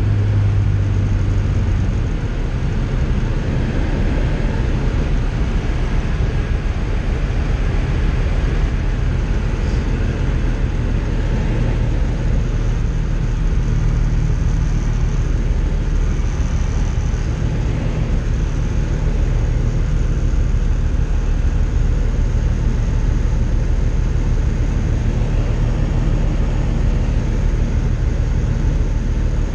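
Tecnam light aircraft's piston engine and propeller drone steadily inside the cockpit, with rushing airflow noise. The deepest part of the hum drops away about two seconds in.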